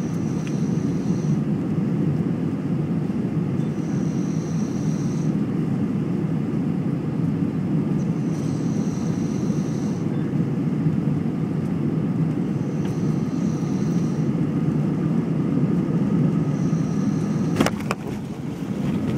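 Steady rumble of an Airbus A320-family airliner's jet engines and rushing air, heard inside the cabin on final approach, with a faint high whistle coming and going every few seconds. Near the end, a single sharp knock as the wheels touch down on the runway.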